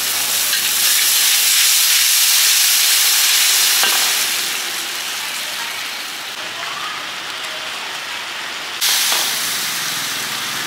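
Pad thai frying at a street stall, a steady loud sizzle that eases off after the first few seconds and jumps up suddenly again near the end.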